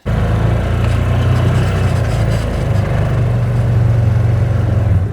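A vehicle engine running steadily and loudly, a low rumble heard close up.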